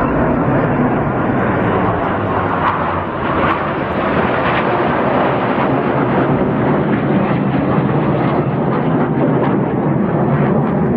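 Red Arrows BAE Hawk T1 jets flying in formation: a loud, steady rush of jet engine noise.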